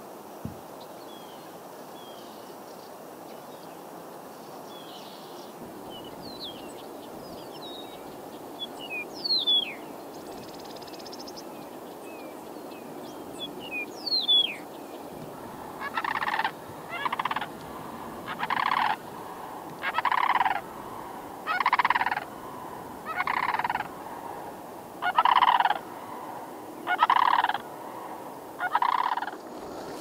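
Sandhill crane calling: a series of about nine loud calls, each under a second, repeated every second and a half or so through the second half. Before them, small birds chirp with thin, falling whistles.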